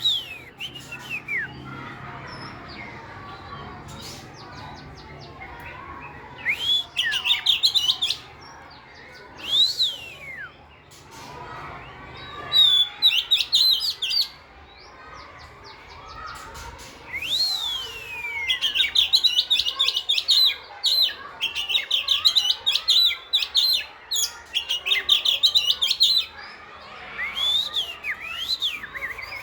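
Oriental magpie-robin singing: loud whistled phrases of swooping notes that rise and fall, and quick runs of rapidly repeated notes, in several bursts with short pauses between them.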